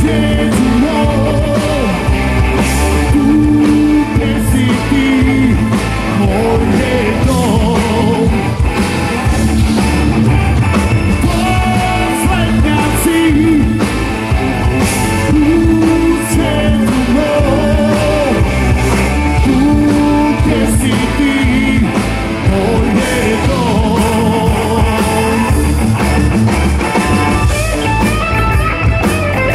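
Live rock band playing: a male lead singer singing over electric guitar, bass guitar, drum kit and keyboards, loud and continuous.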